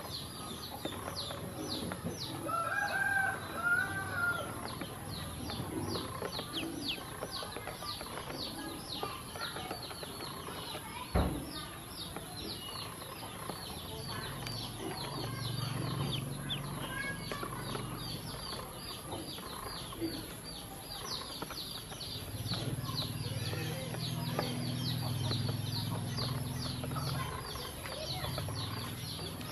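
A brood of ducklings peeping nonstop, many short high falling peeps overlapping each other, with one sharp knock about eleven seconds in.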